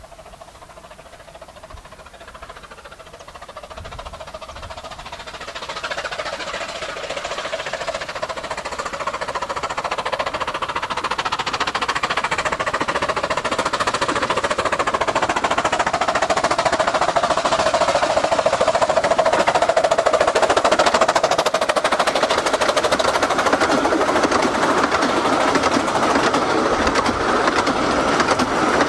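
15-inch gauge miniature steam train approaching and passing. The locomotive's rapid exhaust beats and wheel noise grow steadily louder as it nears, then the coaches rumble past close by near the end.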